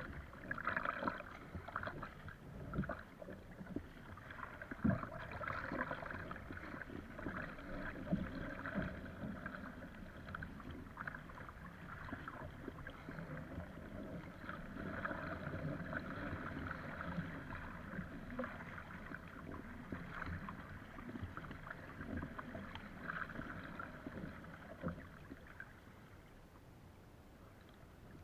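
Water splashing and rushing along the hull of an Epic V7 surfski paddled through choppy waves, with irregular splashes from the paddle blades, coming in surges and easing off near the end.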